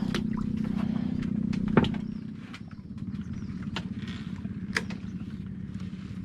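A small engine running steadily, its hum easing a little after about two seconds, with sharp clicks or knocks about two seconds in and again near five seconds.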